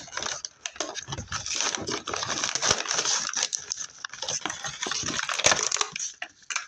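Toy box packaging being pulled and torn open by hand: a busy run of crinkling, crackling and rustling.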